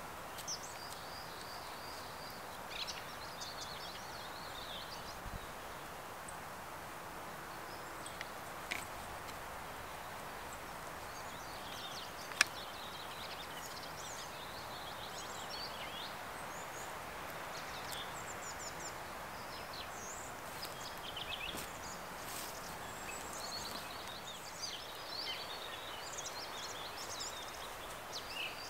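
Forest ambience: a steady rush of outdoor background noise with small birds chirping on and off, and a single sharp click about twelve seconds in.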